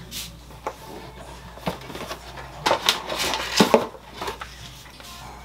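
Packaging being handled: a plastic protein-shake pouch is pulled out of a cardboard box, with scattered taps and crinkling, busiest about three seconds in.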